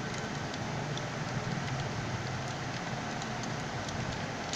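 Steady background hiss and hum, with a few faint light clicks from a screwdriver loosening a screw on a fuser unit's end bracket.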